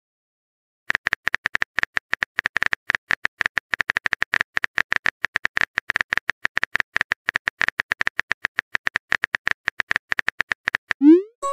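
Phone keyboard typing sound effect: rapid, even taps, several a second, as a message is typed out letter by letter. Near the end a short rising tone sounds.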